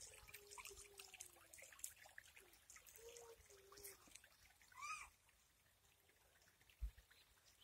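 Near silence with faint animal calls: a few low, drawn-out wavering tones early on and a brief higher arched call about five seconds in, then a single low thump near the end.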